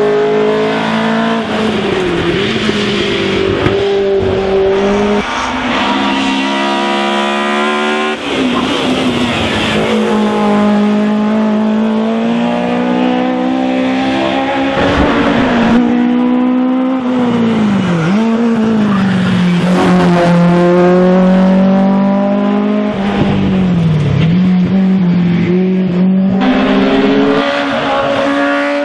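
Race-prepared touring car engines revving hard up a hill-climb course. The pitch climbs, then drops sharply several times at gear changes and lifts for corners, and a second car's engine comes in near the end.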